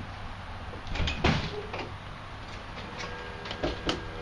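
A motorhome door being worked: two loud clunks about a second in, then a few lighter clicks and knocks near the end, over a steady low hum.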